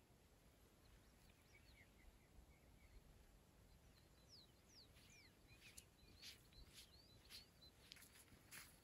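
Very faint outdoor quiet with a few thin, short bird chirps, then, from about six seconds in, soft footsteps on dry grass at about two a second, growing louder near the end.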